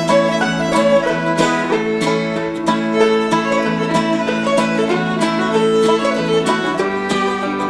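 Upbeat bluegrass-style background music with fiddle and plucked banjo and guitar over a steady beat.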